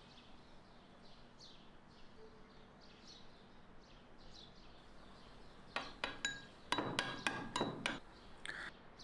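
Metal spoon clinking against a small ceramic bowl: a quick run of about ten clinks over two seconds, starting about six seconds in, as mayonnaise and grated garlic are stirred into a dressing.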